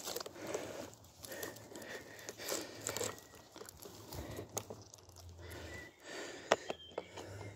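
Dry undergrowth rustling and crunching, with scattered sharp clicks and snaps of twigs. The loudest snap comes about six and a half seconds in.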